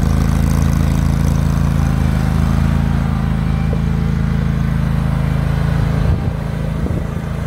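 Engine of a 2016 Cub Cadet Z Force LZ commercial zero-turn mower running steadily as the mower is driven. About six seconds in, the engine note wavers and dips briefly.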